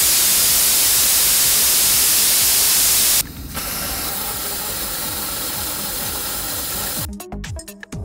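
Compressed air rushing out of a heavy truck tyre's open valve after the valve core is pulled: a loud, steady hiss. After a brief break about three seconds in, the same deflation runs through a Dosil valve-core extractor, whose perforated silencer body leaves a much quieter hiss. Electronic music comes in about seven seconds in.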